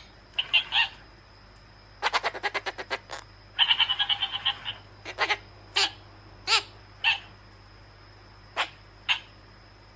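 A pet bird making short chirping calls. They come singly or in pairs, with a quick rattling run of about eight clicks in a second and a buzzy, pulsing call partway through.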